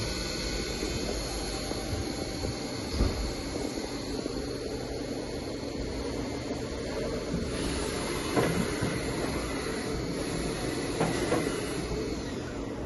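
Spindle of a 1995 Haas VF-0 vertical machining centre running steadily at 3000 rpm with no cutting feed: a steady mechanical hum and hiss with a faint high whine, and a few brief clicks.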